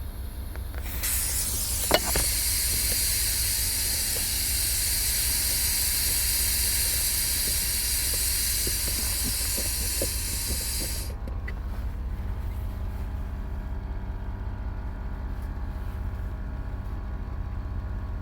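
Compressed air hissing loudly as the Oldsmobile Bravada's built-in air compressor inflates a punctured inner tube, cutting off abruptly about eleven seconds in. A sharp click about two seconds in, and a low steady hum throughout.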